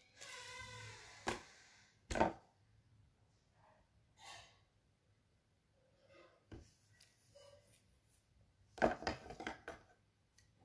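A few sharp clicks and soft rustles of paper and phone being handled close to the microphone, with faint breaths. Two clicks about a second apart near the start are the loudest, and a quick run of clicks comes near the end.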